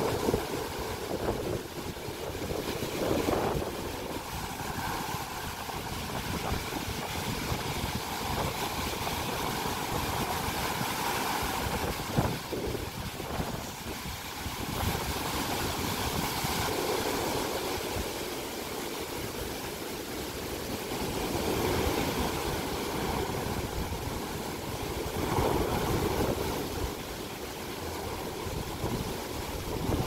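Storm surf breaking on a sandy beach and washing against boulders: a continuous rush of water that swells and ebbs as each wave comes in. Wind buffets the microphone, adding a low rumble.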